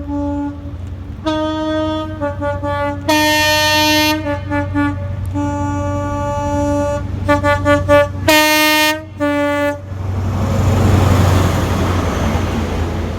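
Train horn sounded as a tune, alternating high and low notes in long and short blasts with a quick run of short toots about two thirds through, over a steady low engine hum. The horn stops about ten seconds in and the rush of the passing train swells and fades.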